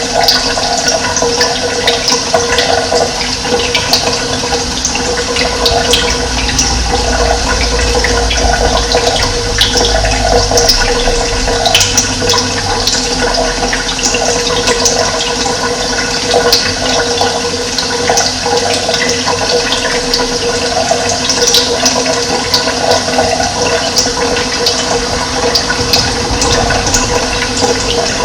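Running water flowing steadily, a loud continuous rushing hiss with no break.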